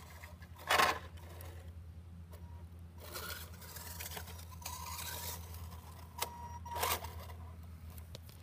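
Radio-controlled model car running across concrete: a small motor whine that grows stronger as the car comes closer, with short scraping bursts about a second in and again near seven seconds.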